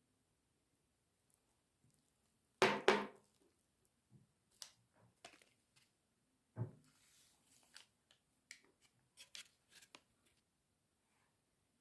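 Kitchen preparation handling noises: two loud sharp knocks close together about three seconds in, then a scatter of lighter taps and clicks.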